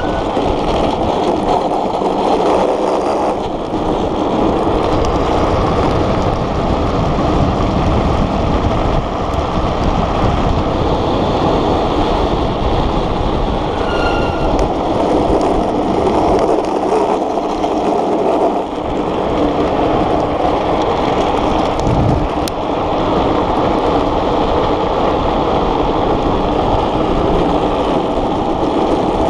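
Gravity speed trike rolling fast downhill: a steady, loud rumble of its wheels on rough asphalt mixed with wind rushing past, with no engine. A brief high squeal about fourteen seconds in, as the trike takes a bend.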